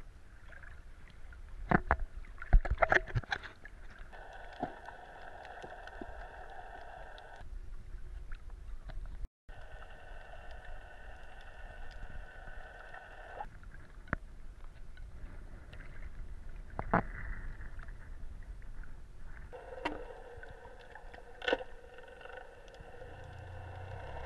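Muffled water noise heard with the camera submerged, with a cluster of sharp knocks and splashes in the first few seconds and single knocks later. A steady droning hum starts and stops several times.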